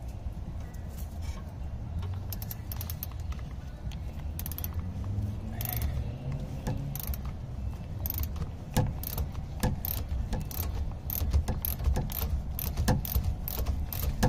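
Milwaukee cordless electric ratchet working the nut off a rear stabilizer bar link. A short motor whir comes about a third of the way in, then an uneven run of sharp ratchet clicks fills the second half as the link comes loose.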